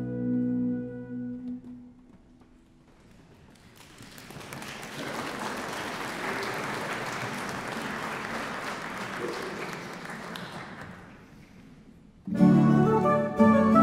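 A closing chord from a harpsichord and an orchestra of Lithuanian national instruments dies away. After a brief hush, the audience applauds for about seven seconds, swelling and fading. Near the end the ensemble suddenly starts playing again, with plucked zither-like strings and harpsichord.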